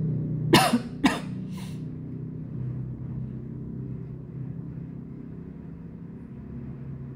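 A woman coughs three times in quick succession about half a second in, the last cough fainter, over a steady low hum.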